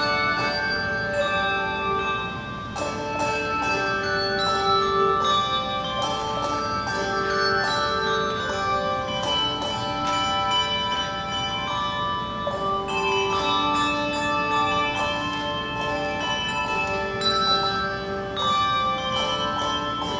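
Handbell choir ringing a tune: bells struck one after another, their clear tones ringing on and overlapping into chords.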